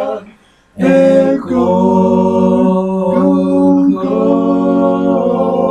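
Gospel vocal group singing a cappella in harmony: long held chords with a brief break about half a second in.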